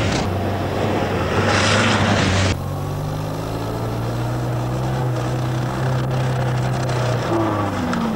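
Small four-cylinder car engine running hard on a dirt track. A rough hiss of gravel and wind over it cuts off suddenly about two and a half seconds in, leaving a steady engine drone whose note drops near the end.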